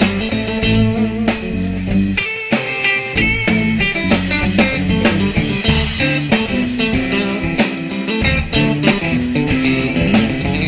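Live blues band playing an instrumental break: electric guitar lead lines over bass guitar and a steady drum beat.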